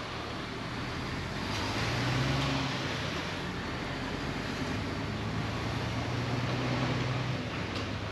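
Truck engine running, heard from inside the cab while the truck moves slowly, under a steady hiss; the engine note rises about two seconds in and drops away near the end.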